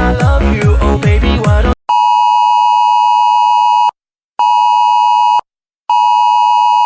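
Electronic dance music with a steady kick drum cuts off about two seconds in. A steady electronic alert tone of the Emergency Alert System kind follows: one long beep of about two seconds, then two one-second beeps with short gaps.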